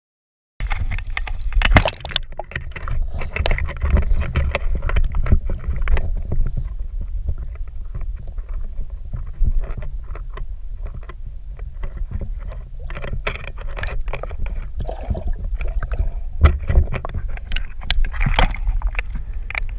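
Lake water sloshing and splashing around a waterproof action camera held at the surface and dipped under, with a constant low rumble and many short, irregular splashes.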